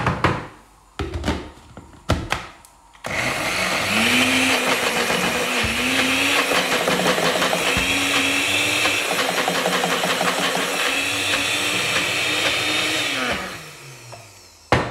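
Personal bullet-style blender blending pesto from basil, pine nuts, garlic, parmesan and olive oil. A few knocks come first, then the motor runs for about ten seconds, its pitch dipping and recovering several times, and winds down with a falling whine near the end.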